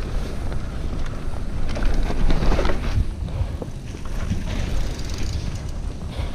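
Wind buffeting a helmet-camera microphone over the rumble and rattle of a downhill mountain bike rolling over a rough dirt trail. A few knocks come from the bike about two to three seconds in.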